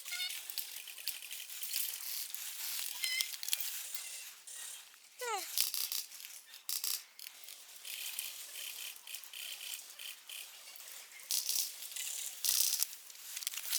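Rustling and crackling of brush and dry leaves, full of small clicks. About five seconds in, a short whistle-like call falls in pitch.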